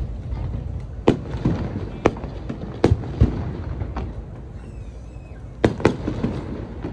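Fireworks shells bursting in the sky: a run of sharp bangs about one a second, with a low rumble between them, a lull around four to five seconds in, then two more bangs close together.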